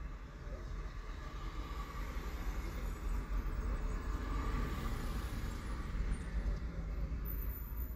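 Road traffic rumbling steadily, heard from inside a parked car, with a passing car swelling a little around the middle.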